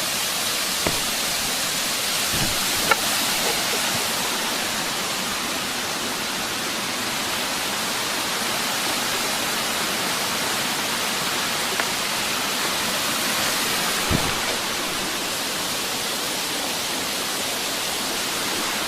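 Steady rushing of a mountain stream tumbling over rocks, with a few faint knocks.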